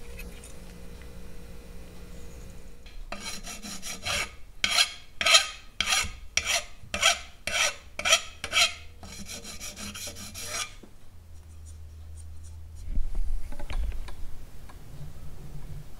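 Hand file rasping in steady back-and-forth strokes, about a dozen over some seven seconds, filing the excess solder and snipped wire end off a freshly soldered brass throttle-cable nipple held in a vise. A couple of low knocks follow near the end.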